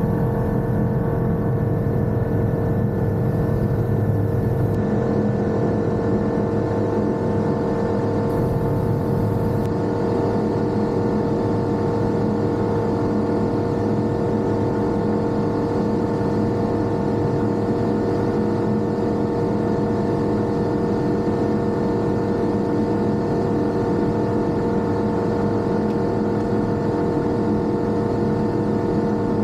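Light single-engine aircraft's piston engine and propeller running steadily at takeoff power, heard from inside the cockpit. It is a constant, even engine note with a strong hum.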